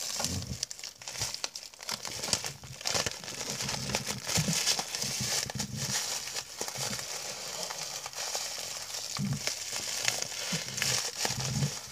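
Crumpled plastic trash bag crinkling and rustling as it is squeezed and wrapped in tape, close to the microphone, with irregular handling bumps.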